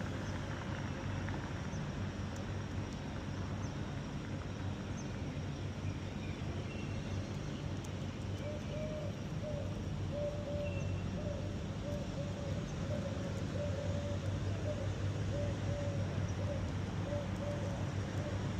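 Steady hum of city traffic, with a few faint bird chirps. In the second half a short low tone repeats about once a second.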